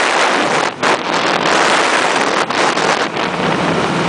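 Heavy wind buffeting the microphone on a motorcycle at highway speed, with the bike's road and engine noise underneath. The rush drops out briefly about three-quarters of a second in and again around two and a half seconds.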